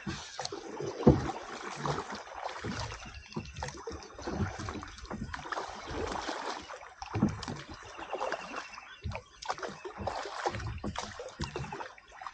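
Water splashing and sloshing against a small rowboat as it is paddled along, in uneven strokes with occasional knocks.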